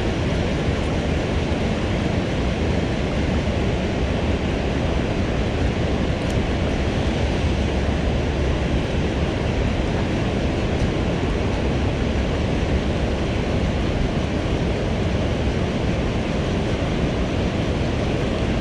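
Steady rush of water pouring through a dam's open spillway gates and churning in the tailwater below.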